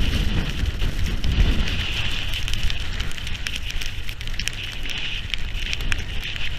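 Storm wind buffeting an action camera's microphone with a low rumble, while rain strikes the housing in a steady crackling patter of small ticks.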